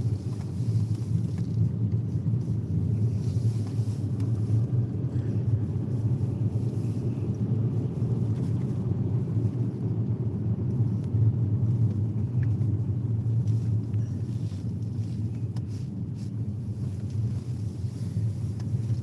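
A car driving steadily, its tyre and road rumble low and even, with no change in speed.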